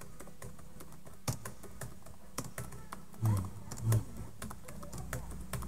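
Typing on a computer keyboard: irregular, quick key clicks as a run of words is typed.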